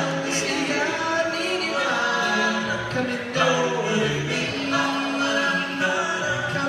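Doo-wop vocal group singing a cappella in close harmony: several voices hold chords that shift every second or so, over a low bass voice.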